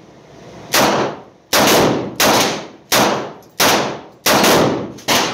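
Revolver firing a rapid string of shots, about one every two-thirds of a second, each crack followed by a short echo in the enclosed range.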